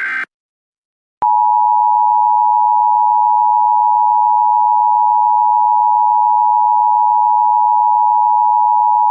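The tail of an Emergency Alert System data burst, a harsh buzzy screech, cuts off just after the start. After about a second of silence the EAS two-tone attention signal begins: a loud, steady, unwavering alarm tone that holds.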